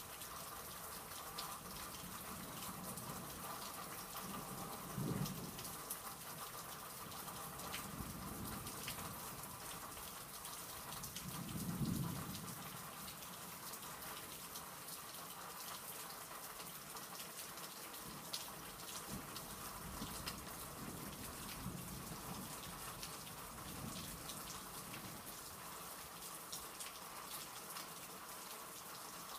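Steady rain falling, with low rumbles of thunder swelling up several times, the loudest about twelve seconds in.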